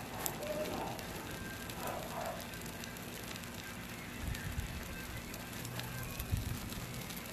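Steady low crackling hiss, with faint snatches of voice in the first couple of seconds and dull thumps about four and six seconds in.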